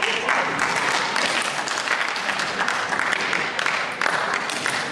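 A small audience applauding after a table-tennis rally, with steady clapping that stops near the end.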